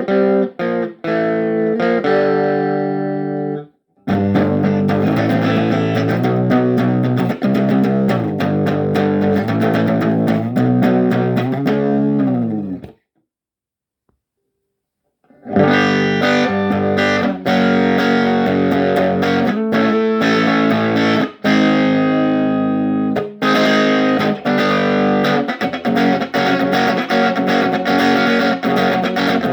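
Electric guitar played straight into a small PCL86 valve amplifier with no effects pedals, single notes and chords. The playing stops for about two seconds midway, then starts again.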